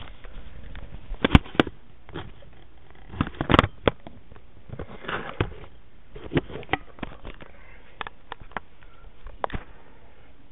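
Handling noise from a handheld camera being moved about and set down: irregular knocks, clicks and rustles, the loudest knocks a little over one second in and about three and a half seconds in.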